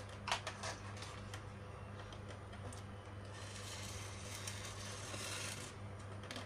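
Handheld hot glue gun at work on a PVC pipe laid along a foam sheet: a few sharp clicks from its trigger and glue-stick feed near the start, then a soft rasping for a couple of seconds as the nozzle is drawn along the pipe.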